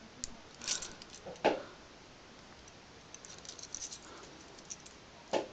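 Try-out key being worked in a 3-lever lock: faint metallic scrapes, ticks and rattles of the key against the levers and of the bunch of trial keys on their ring, with a sharper knock about a second and a half in.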